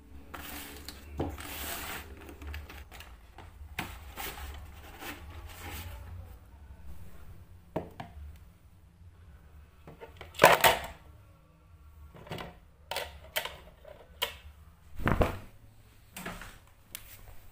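Objects being handled and set down: rustling at first, then scattered clicks and knocks, the loudest about ten seconds in and a thump about fifteen seconds in.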